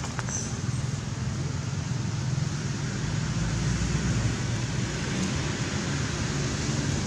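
Steady outdoor background noise: a low rumble with a hiss over it, and no monkey calls.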